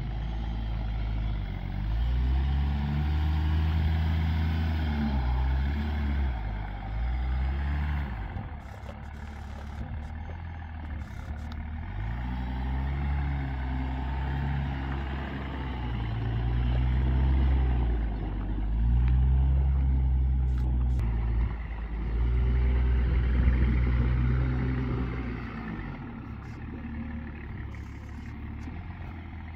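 Range Rover P38 2.5 DSE's 2.5-litre turbodiesel inline-six running on its standard exhaust. The engine note rises and falls in pitch several times.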